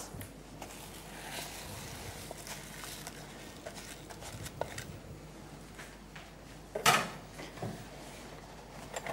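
Quiet kitchen handling sounds: uncooked rice tipped from a plastic bowl into a pot of water on a gas stove, with small clicks, then a sharp clatter about seven seconds in and a smaller knock just after.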